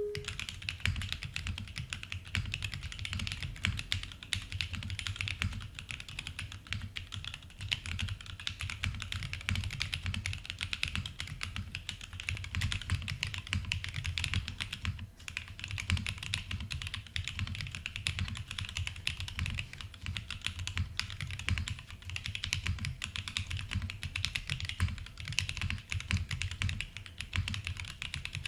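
Continuous typing on a Monokei x TGR 910 v2 ME mechanical keyboard with lubed and filmed Banana Split linear switches on a polycarbonate plate and TX stabilizers: a dense stream of keystrokes, with a short break about halfway.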